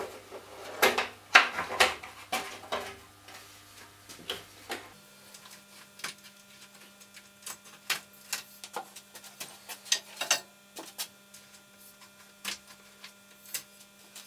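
A twin-tube T8 fluorescent ceiling fitting being taken apart by hand: irregular clicks and knocks as its diffuser cover and tubes are handled and lifted out, busiest and loudest in the first few seconds. A faint steady hum runs underneath.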